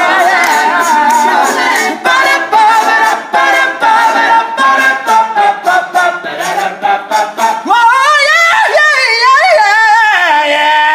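Men's a cappella group singing without words, backing voices over a steady percussive beat. In the last few seconds a solo voice sings wavering high runs over a sustained chord.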